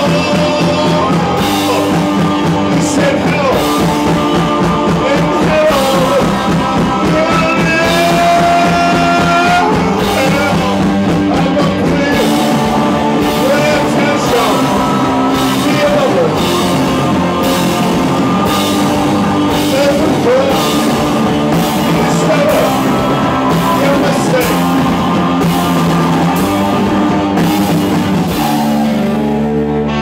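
Rock band playing live: a sung lead vocal over electric guitars and a drum kit keeping a steady beat. Near the end the drums stop and the guitars ring on in held chords.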